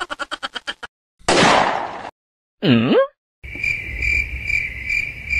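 Cricket-chirping sound effect: evenly spaced high chirps, a few per second, over a low rumble, starting a little past halfway. Before it come a run of fast clicks that fade out, a loud hiss-like burst, and a short pitched sound that slides down and back up.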